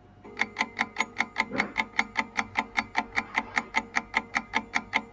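Countdown timer sound effect: a clock-like ticking, fast and even at about five ticks a second, that counts down the seconds given to answer a quiz question.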